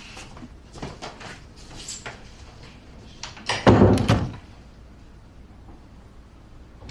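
A door being pushed shut with a thump about three and a half seconds in, after a few lighter clicks.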